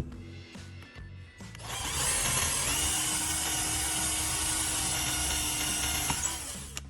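A power tool runs for about five seconds, starting about a second and a half in and stopping shortly before the end, a loud even whirring noise with a steady tone in it, over background music.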